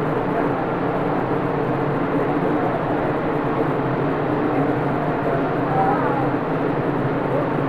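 A steady background hum, an even drone with no sudden sounds.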